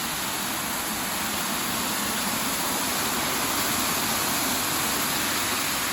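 Steady rush of river water tumbling over a small waterfall, swelling a little toward the middle.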